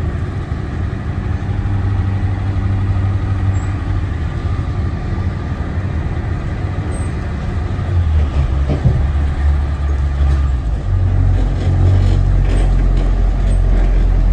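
Bus engine running while the bus drives, heard from inside the cab: a steady low drone that drops lower in pitch around the middle and grows louder over the last few seconds.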